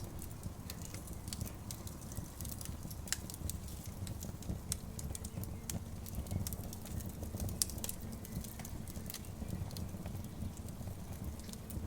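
Wood campfire crackling: irregular sharp pops and snaps over a low steady rumble.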